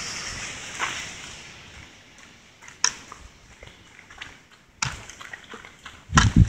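Footsteps on a gravel track, with a sharp crunch about every two seconds. Under them the rush of a river fades away in the first couple of seconds. Two heavy thumps come near the end.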